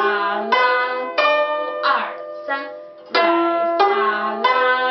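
Guzheng playing slow broken chords: single plucked notes, one about every two-thirds of a second, each ringing on and fading, with some notes bent in pitch by the left hand.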